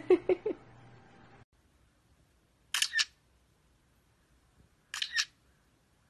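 A few short pitched calls over a steady hum stop suddenly about a second and a half in. Then a budgerigar makes two short, sharp double clicks about two seconds apart.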